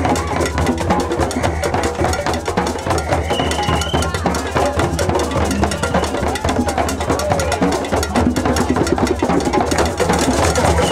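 Drum circle of djembes and congas played together with a timbales set and cymbal struck with sticks, in a dense, unbroken rhythm.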